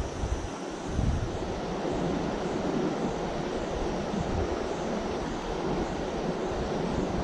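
Wind buffeting the microphone in uneven low gusts, strongest about a second in, over a steady rushing noise of flowing river water.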